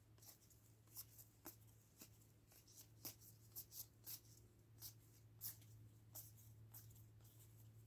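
Faint, irregular clicks and swishes of glossy chrome trading cards being slid one by one off a stack from one hand to the other.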